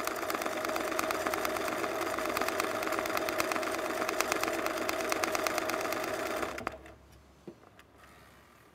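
Sewing machine running fast in zigzag stitch for free-motion embroidery, a rapid even run of needle strokes; it stops about two-thirds of the way through, followed by a few faint clicks.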